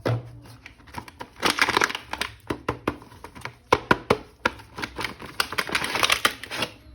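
Plastic packaging crinkling and rustling, with many sharp clicks, as a toy action figure is unpacked.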